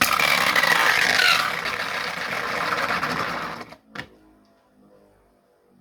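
Two 3D-printed Beyblade spinning tops whirring and scraping against each other and the stadium in a steady rattling spin, with a whine that falls in pitch. The spin noise stops abruptly a little over halfway through, followed by a single sharp click.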